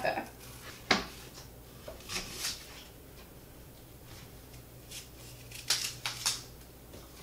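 Quiet hand food-prep noises of fruit being peeled and cut on plastic cutting boards: a sharp tap about a second in, then a few short scrapes, most of them clustered near the end.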